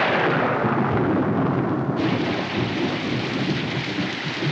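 Thunder rumbling, then heavy rain pouring down in a steady hiss that grows brighter and fuller about two seconds in.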